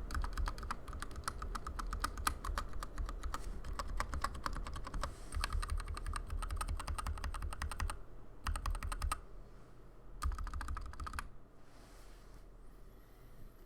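Fast typing on a Skyloong GK61X 60% hot-swap mechanical keyboard with stock Zeal Turquoise Tealio tactile switches: rapid keystrokes for about eight seconds, then two short bursts, and the typing stops about three-quarters of the way through.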